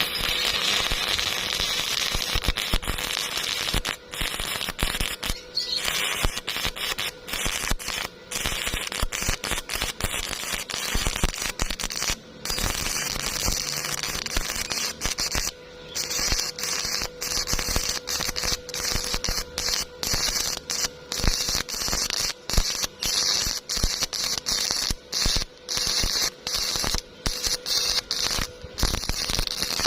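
Stick-welding arc crackling and hissing steadily, with frequent sudden brief breaks where the arc cuts out and restarts.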